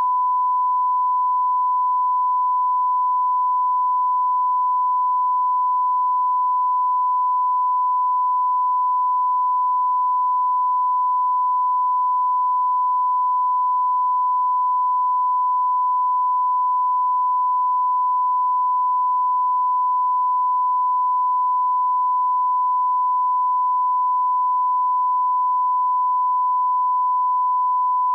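Broadcast line-up test tone: a steady 1 kHz sine tone played with the station's colour bars, the reference signal used for setting audio levels. It starts abruptly out of silence and holds unbroken at one pitch and level.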